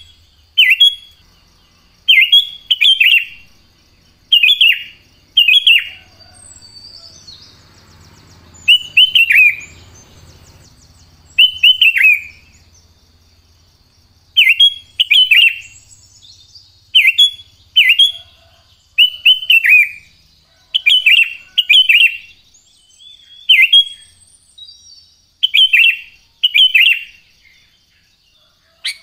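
Sooty-headed bulbul (kutilang) calling: loud, short, downward-slurred chirps, often in pairs, repeated every second or two with a couple of brief pauses. A faint steady high tone runs behind them.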